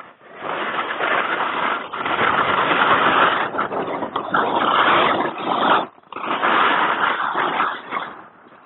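Skis sliding fast through snow down a steep slope, a loud rushing hiss mixed with wind on the camera's microphone. It breaks off briefly about six seconds in, then resumes.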